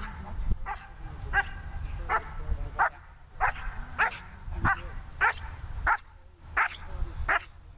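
Black German Shepherd barking repeatedly in short, sharp barks, roughly one and a half a second with one brief pause, as it strains on its leash at the protection helper.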